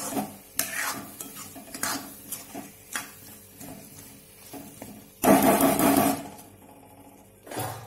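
A steel spatula stirs and scrapes chunks of ash gourd and soaked chana dal around a non-stick kadhai, with several short scrapes in the first three seconds. About five seconds in comes a louder scrape lasting about a second.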